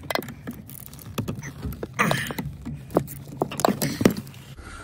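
Irregular metallic clicks and knocks as a wrench works the bolt on a Nissan Versa's steering-shaft universal joint, with sharper knocks about two, three and four seconds in, over a steady low hum.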